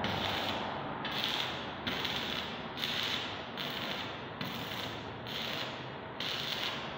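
Electric arc welding: the arc crackles and spits steadily as a bead is laid on the steel base plate of a hand trolley.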